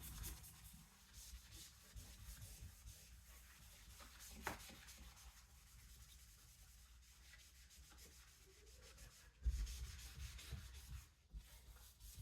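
Faint rubbing of a Magic Eraser melamine foam sponge scrubbing a wall clean, with a short low thump about nine and a half seconds in.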